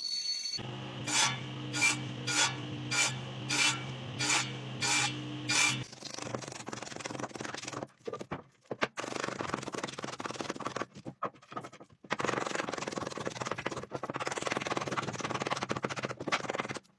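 Repeated scraping strokes, about eight evenly spaced over a steady low hum in the first six seconds, then irregular, continuous scraping with brief pauses.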